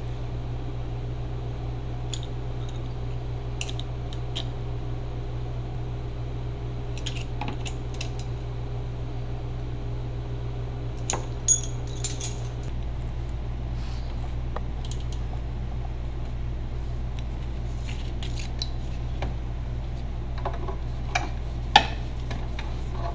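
Light clicks and rattles of a trailer wiring harness and plastic trim being handled, with sharper clicks about eleven seconds in and near the end, over a steady low hum.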